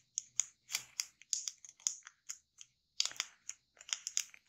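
Thin kami origami paper being folded and creased by fingers: a run of small, irregular crisp crackles and ticks, busiest about three seconds in.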